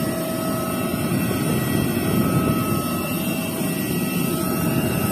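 Jet airliner's turbine running on the apron: a steady low rumble with a thin, even high whine over it.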